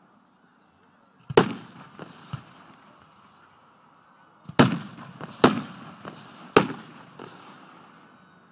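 Aerial fireworks shells bursting: a loud bang about a second and a half in and two smaller pops just after, then three loud bangs about a second apart around the middle, each trailing off in echo.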